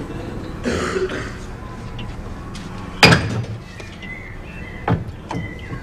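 Small objects handled and knocked: one sharp, ringing knock about three seconds in is the loudest sound, with a short hiss shortly before it and a few lighter clicks near the end.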